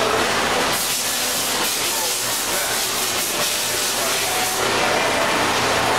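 Air hissing from the pneumatics of a Leadwell V-60 vertical machining center during an automatic tool change. A steady hiss grows into a loud blast of air from about a second in and drops back just before the end.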